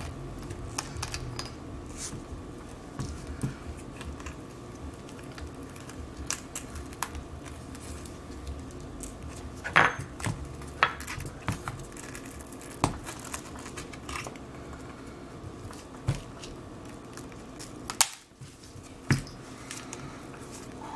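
Scattered clicks and light taps of hand work: plastic opening picks and the cracked iPad 6 digitizer glass being pried, handled and set down on a silicone repair mat. The loudest click comes about ten seconds in, with several more sharp ones later, over a faint steady hum.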